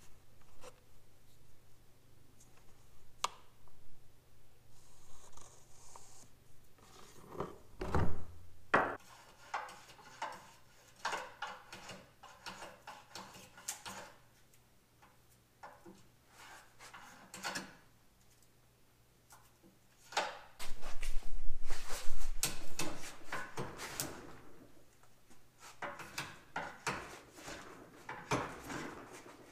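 Workshop handling sounds: scattered knocks, clatter and rubbing of tools and parts, with runs of quick scraping strokes as a small piece clamped in a bench vise is worked by hand. The loudest is a stretch of a few seconds of dense scraping a little past the middle.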